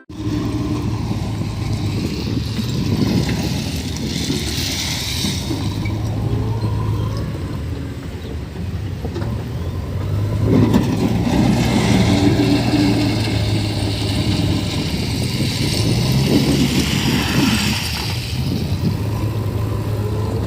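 Heavy diesel machinery engine running steadily, swelling louder and rougher in stretches about 3, 10 and 16 seconds in.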